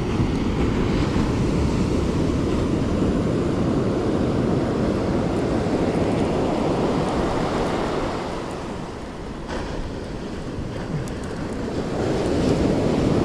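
Ocean surf washing onto the beach, with wind on the microphone. The wash eases about eight seconds in and builds again near the end.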